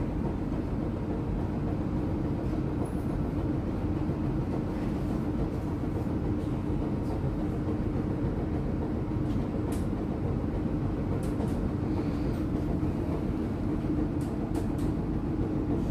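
1944 PCC streetcar running along its track, heard from inside the car: a steady rumble of wheels and running gear with a steady hum, and a few faint clicks.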